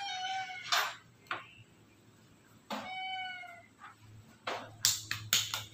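A white stray cat meowing twice, one call at the start and another about three seconds in, begging to be fed. Several sharp knocks follow near the end.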